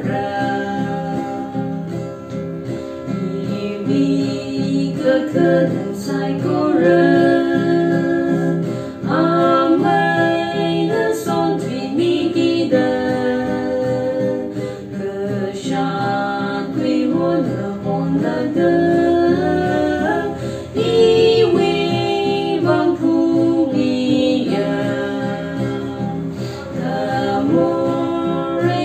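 Two women singing a hymn together, accompanied by a strummed acoustic guitar.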